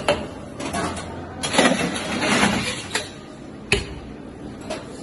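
Basil and lime being muddled in a metal cocktail shaker tin: a grinding, scraping stretch in the middle, with sharp metallic knocks and clinks of bar tools before and after.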